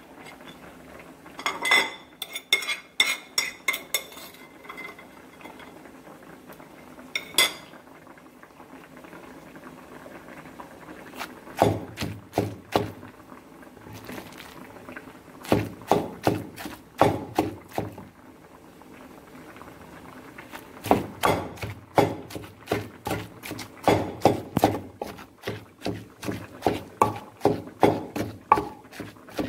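A few ringing clinks of a ceramic plate as fish is emptied into a wooden mortar. Then a wooden pestle pounds and mashes the fish with chilli and garlic in the mortar, in runs of quick, even knocks.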